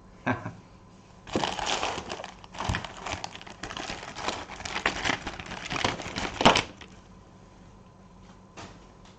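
Parcel packaging being cut open with a knife and pulled apart: a dense crinkling, crackling rustle lasting about five seconds, loudest just before it stops.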